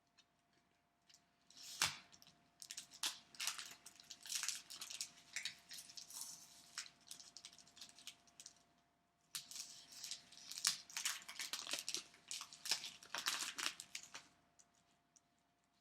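Trading-card pack wrapper being torn open and crinkled by hand, in two spells of rustling and crackling a few seconds each, with a short pause between them.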